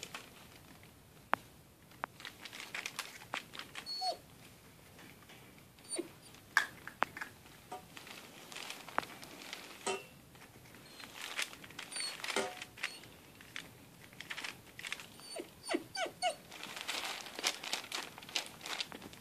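Puppies giving a few short, high whimpers now and then, over the quiet clicks and rustle of a husky puppy eating from a plate set on newspaper.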